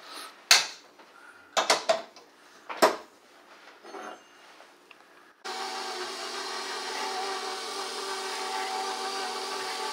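A few sharp metallic knocks as the steel bowl is handled and seated on a KitchenAid bowl-lift stand mixer. About five seconds in the mixer's motor switches on suddenly and runs at a steady pitch, its flat beater mixing thick cheese filling.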